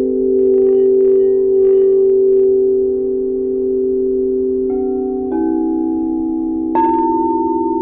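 Several singing bowls ringing together in long, steady, overlapping tones, with three further strikes in the second half that add new, higher notes; the last strike is the loudest.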